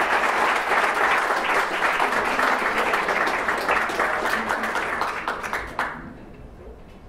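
Audience applauding, a dense patter of many hands clapping that dies away quickly about six seconds in.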